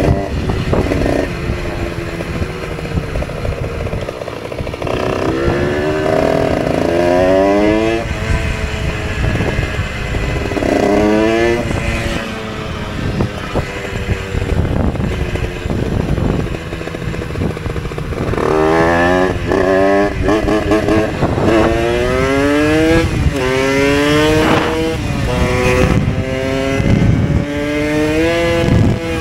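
Moped engine accelerating up through the gears, its pitch climbing in about six rising runs that drop back at each shift, over steady wind rush on the microphone.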